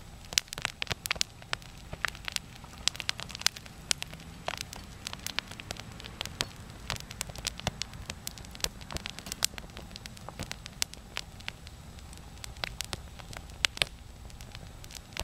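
Crackling fire: irregular sharp snaps and pops, several a second, over a low steady rumble.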